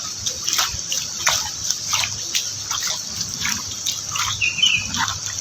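Heavy rain falling, a steady hiss with irregular splashing and dripping of water. A brief high chirp comes about four and a half seconds in.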